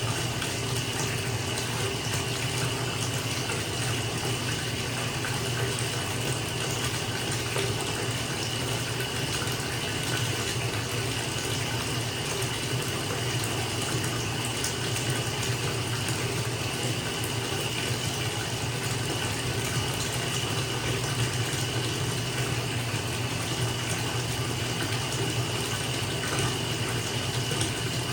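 Bathtub filling from a running tap: a steady, even rush of water pouring into the tub.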